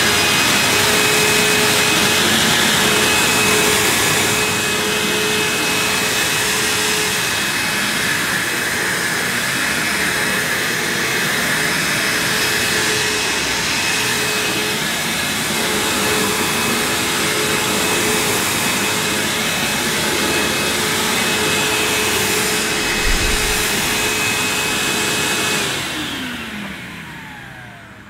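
Vax HF1400 upright vacuum cleaner and carpet washer, its 1400-watt suction motor running and brush roll turning as it is pushed over carpet: a steady whine over a rush of air. Near the end it is switched off and the motor winds down in a falling whine.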